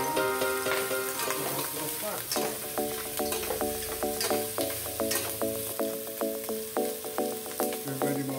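Chicken pieces sizzling as they fry in hot oil in a stainless-steel pot while a metal ladle stirs them. Background music with a steady beat plays over the sizzle.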